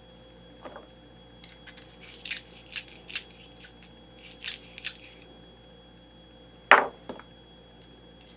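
Fired brass rifle cartridge cases and small tools being handled on a bench: a run of light scrapes and clicks, then one sharper click about seven seconds in.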